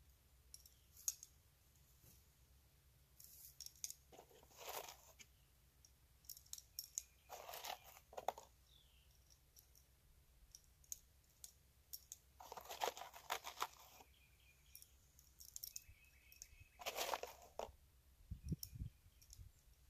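Faint clicks and clinks of .22 LR cartridges being dropped one at a time into the tube magazine of a Henry lever-action rifle, with several longer rattles as rounds slide down the tube.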